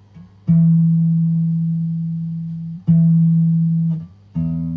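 Electric guitar's low E string sounded at the 12th fret three times, each note ringing and fading over a second or two: an intonation check, and the note is still out of tune.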